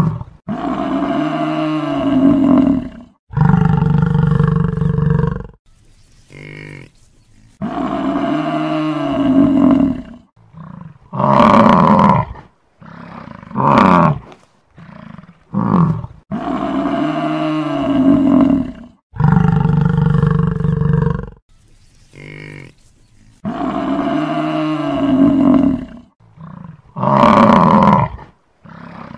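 Buffalo bellowing: long calls of about two seconds, with shorter calls between them. The same sequence of calls repeats about every eight seconds, as a looped recording.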